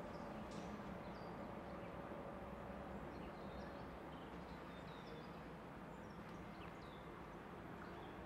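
Faint railway-yard ambience: small birds chirping again and again over a low, steady rumble, with a faint hum that dies away about halfway through.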